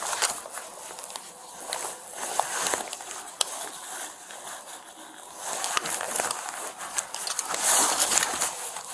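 Clothing rustling and fabric brushing close against a body-worn camera's microphone during a pat-down search, with scattered light clicks. The rustling grows loudest near the end.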